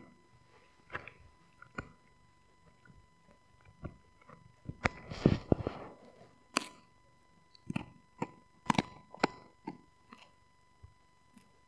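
A husky chewing a rawhide-style bone: irregular clicks and crunches of teeth on the bone. The chewing is busiest and loudest about five seconds in, then comes in scattered bites.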